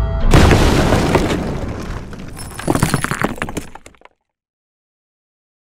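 Logo-reveal sound effect of a heavy impact and glass shattering, with a second burst of tinkling shards around three seconds in, dying away about four seconds in.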